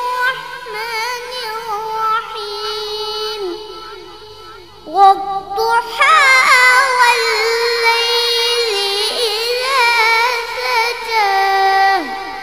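A young boy reciting the Quran in a melodic, drawn-out chanting style with long held, ornamented notes. He eases off and pauses about four seconds in, then resumes louder and higher.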